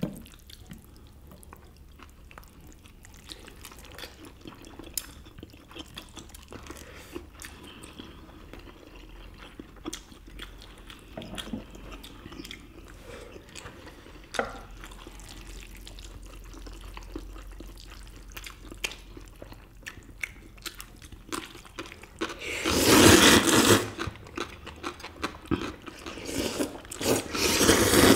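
Eating sounds from spicy bibim noodles and steamed dumplings: quiet chewing and small clicks of chopsticks and utensils, then two loud wet slurps of noodles near the end.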